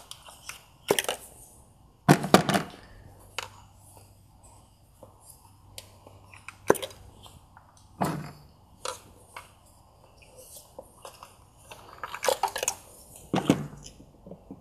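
Scattered clicks and knocks of plastic ignition coil packs being pried up with a flathead screwdriver and pulled out of a VW 2.5-litre five-cylinder engine, with a few louder clattering clusters.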